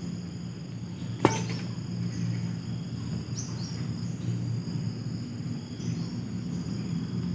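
Wetland insects trilling steadily in several high-pitched tones at once, one of them pulsing evenly, over a low steady hum. A single sharp click about a second in is the loudest sound.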